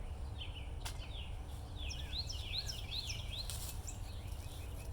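Birds chirping in runs of quick, repeated high chirps over a steady low outdoor rumble, with a single sharp click about a second in.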